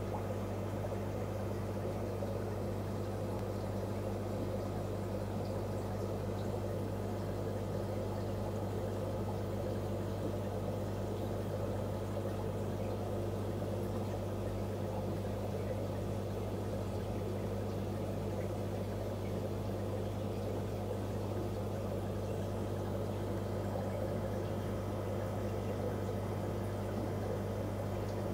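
Aquarium filter running: a steady low hum under continuous bubbling, churning water.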